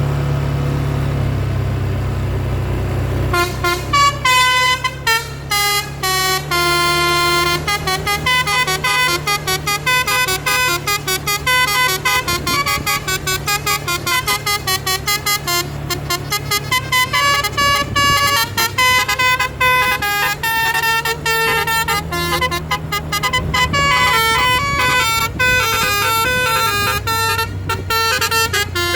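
Bus's multi-tone telolet (basuri) musical horn playing quick melodic tunes, its notes stepping up and down in fast runs, starting about three seconds in. Under it, the bus's engine runs with a steady low hum.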